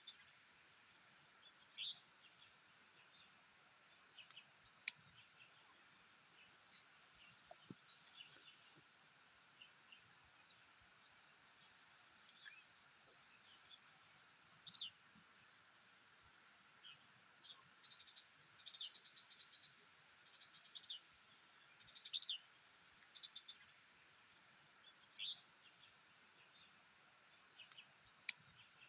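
Faint chorus of insects, crickets or cicadas, holding a steady high drone, with frequent short bird chirps scattered over it.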